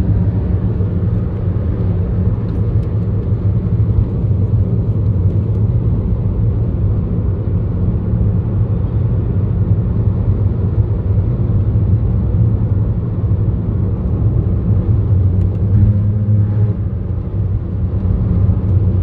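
Car driving at road speed, heard from inside the cabin: a steady, deep rumble of engine and tyres on the road.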